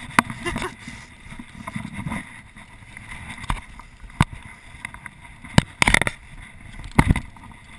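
Scattered sharp knocks and clatter from handling a fallen dirt bike on rocky ground, a cluster of them about six seconds in, over a low rumbling haze.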